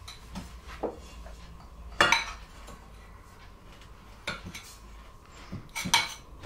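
A metal spoon scraping and clinking against a ceramic bowl and a stainless steel saucepan as caster sugar is tipped from the bowl into the pan, with a few sharp knocks, the loudest about two seconds in and several more near the end.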